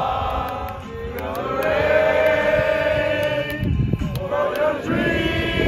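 A group of young men chanting together in unison, drawing out long held notes, with a short break about two-thirds of the way through.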